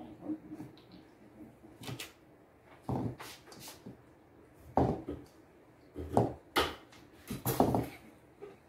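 Ceramic mixing bowls knocking and clunking on a granite countertop as sugar cookie dough is worked by hand: a series of irregular short knocks, roughly one every second or so.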